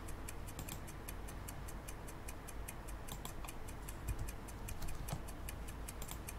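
Faint, steady, fast ticking, about four to five ticks a second, over a low hum.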